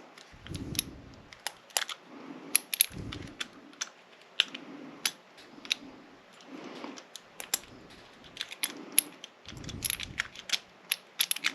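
Irregular light metallic clicks and scrapes of a tool being worked into a lock cylinder at an angle to reach the back pin, with a few dull handling bumps.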